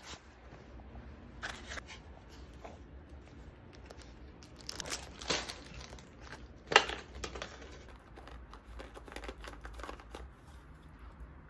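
Paper crinkling and tearing as a paper cup wrapped in paper is crumpled and then torn at by a small dog. The crinkles come in sharp clusters, the loudest a little under seven seconds in.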